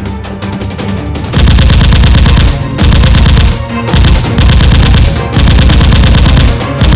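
Bursts of rapid automatic gunfire, a sound effect laid over the action, each burst about a second long with short gaps, starting about a second and a half in, over background music.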